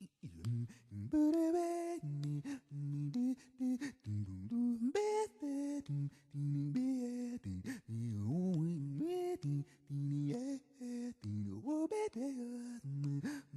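Music: a singing voice carrying a gliding melody over a steadily repeating low accompaniment.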